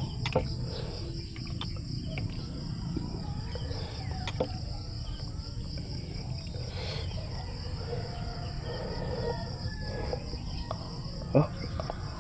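Steady high-pitched chorus of insects such as crickets, with soft eating sounds and a few light clicks of a spoon on food. A brief hum from the eater near the end is the loudest sound.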